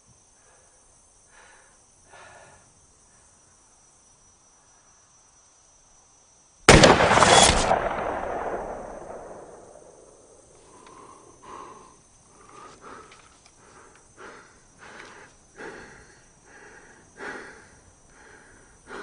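A single rifle shot, very loud, its echo rolling away over two to three seconds. Faint, scattered small sounds follow.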